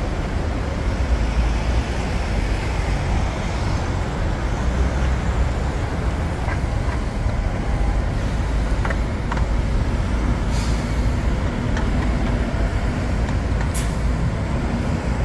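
Busy city road traffic: buses and cars running past at a wide intersection as a steady low rumble. Two short hisses break through, one about ten seconds in and one near the end.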